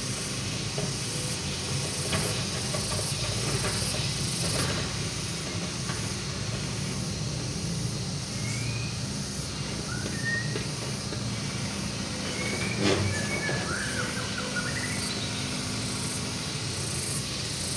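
Sany SY75C excavator's diesel engine running steadily under hydraulic work as the boom and bucket move, with one short knock about two-thirds of the way through.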